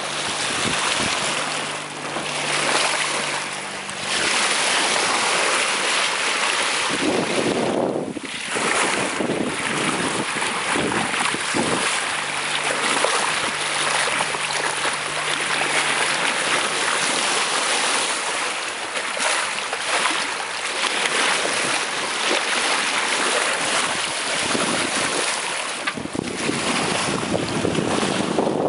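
Sea water rushing and splashing along the hull of a sailing yacht as it moves under sail, with wind buffeting the microphone.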